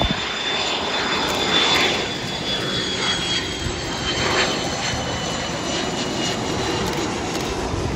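McDonnell Douglas MD-80 jetliner's rear-mounted Pratt & Whitney JT8D engines on final approach, a steady jet rumble with a high whine that falls slowly in pitch as the plane passes low toward touchdown.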